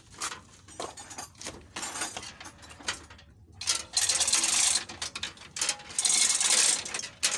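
Hand chain hoist being worked with a truck engine hanging from it: chain running through the hoist with a fast ratcheting clatter in two spells, about four and six seconds in, after a few scattered clanks.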